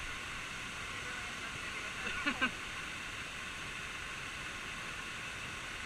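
Steady rushing of a waterfall, with a brief voice about two seconds in.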